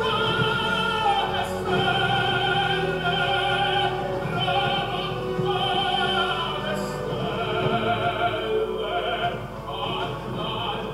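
Background music: a classical piece with an operatic voice singing, the held notes wavering with strong vibrato.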